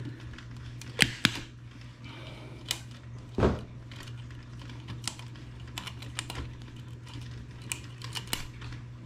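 Small hard clicks and ticks of plastic rings and clips being pried with pliers and worked loose by hand on the neck of a projection TV's picture tube. The clicks come irregularly, sharpest about a second in and near the middle, then as a run of lighter ticks, over a steady low hum.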